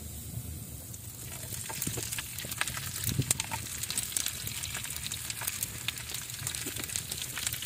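Raw pork sausages frying in melted butter in a hot pan. The sizzle starts about a second in, as the sausages go into the fat, and keeps building, with many small spitting crackles.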